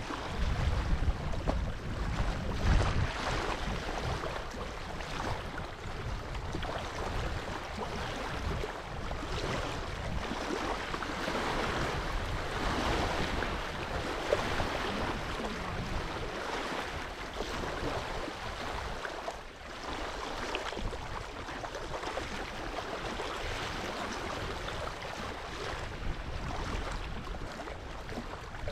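Steady wind with small waves washing at the reservoir shore. Wind buffets the microphone in gusts during the first few seconds.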